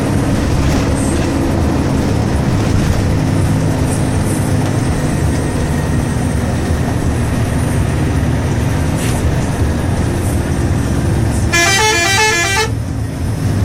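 Steady vehicle engine and road rumble, then near the end about a second of a bus telolet horn: a multi-tone horn playing a quick run of stepped notes.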